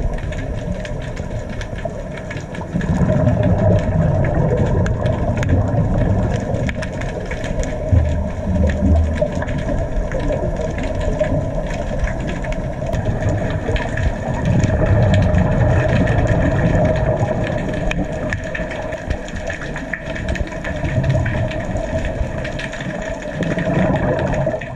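Underwater sound picked up through a camera's waterproof housing: a steady engine-like hum, a constant crackle of small clicks, and muffled low rumbling swells every few seconds.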